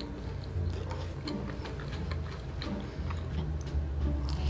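Wet chewing and mouth clicks from someone eating cheese-sauce-covered fries, a scatter of short sharp clicks, over background music with a steady low bass line.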